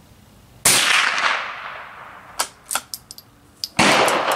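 A CZ 452 2E ZKM .22 LR bolt-action rifle fired twice, about three seconds apart, each sharp crack trailing off in an echo. Between the shots comes a quick series of metallic clicks as the bolt is worked to eject the case and chamber the next round.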